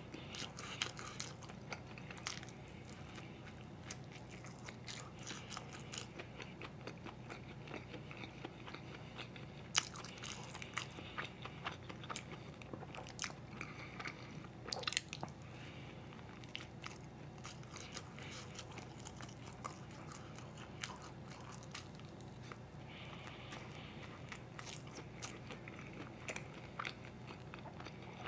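A person biting and chewing filled bread close to the microphone: scattered wet mouth clicks and smacks, a few louder ones midway, over a low steady hum.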